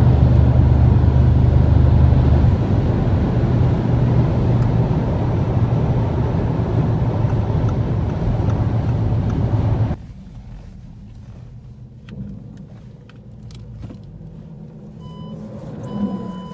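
Audi S7 cabin at highway speed: a loud, steady drone of road and engine noise with a strong low hum. About ten seconds in it drops suddenly to a much quieter, low cabin rumble at lower speed.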